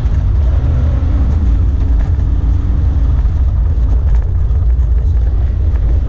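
Alfa Romeo GTV 2000's twin-cam four-cylinder engine running steadily as the car is driven, heard from inside the cabin as a loud low drone, with scattered faint ticks and rattles over it.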